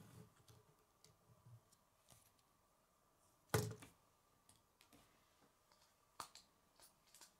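Plastic K'nex construction pieces being handled, with faint scattered clicks and one sharp plastic knock about three and a half seconds in, and a smaller click near six seconds.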